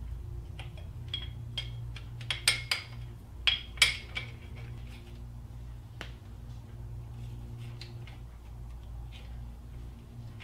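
Scattered light metallic clicks and clinks of a bolt and hand tools being handled while a timing chain tensioner guide is fitted, with a cluster of clicks about two to four seconds in, over a steady low hum.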